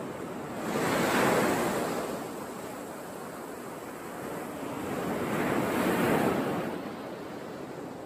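Surf on a sandy beach: a steady hiss of waves with two louder swells as waves break and wash in, one about a second in and another around six seconds.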